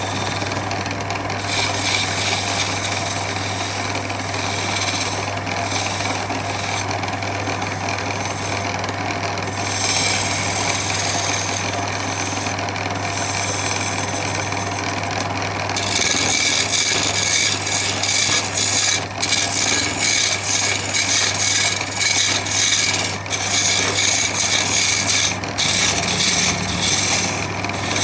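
A power tool working on wood, its motor running steadily. About sixteen seconds in it grows louder and harsher, with brief dips in level.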